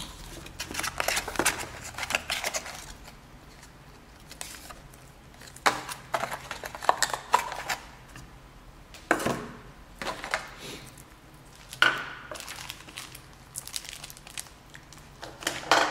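Phone packaging being handled by hand: plastic bags crinkling and the cardboard box and paper manual being shifted, in clusters of rustles, knocks and clicks.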